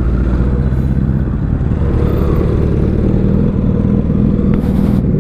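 Motorcycle engine running at a steady pitch while being ridden.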